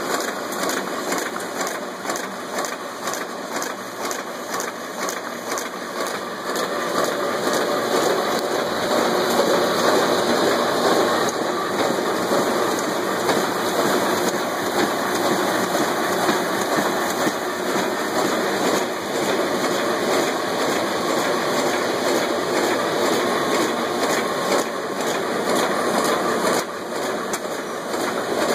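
Web-fed printing press and its folder running at speed, printing and folding book signatures: a loud, steady mechanical din with a fast, even clatter over it.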